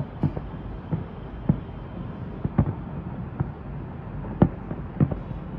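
Distant fireworks: about a dozen sharp bangs at irregular intervals over a steady low rumble, the loudest a little past four seconds in.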